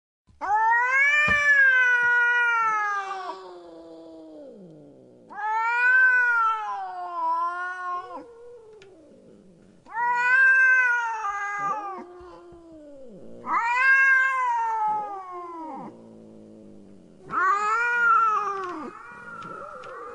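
A domestic cat yowling: five long, drawn-out meows of two to three seconds each, rising and then falling in pitch, about four seconds apart.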